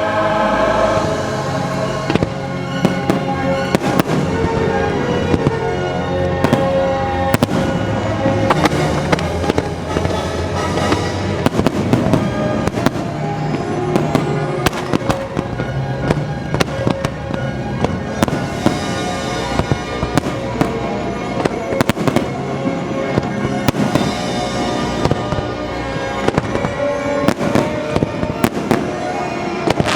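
Fireworks show: frequent firework bangs and crackling pops, many close together, over loud orchestral show music played through the park's speakers.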